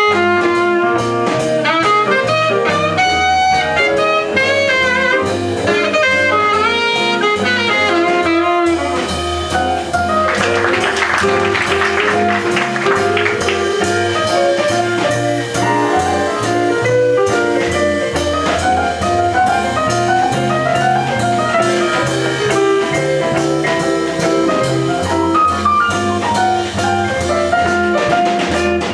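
Small jazz band playing live: a saxophone lead line over bass and drum kit, with a stretch of heavy cymbal playing about ten seconds in.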